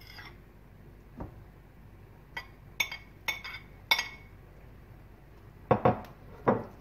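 Metal spoon clinking against a ceramic plate four times in quick succession as chicken mince is scraped off it, each clink ringing briefly. Near the end come two duller knocks as the spoon works the mince in a non-stick frying pan.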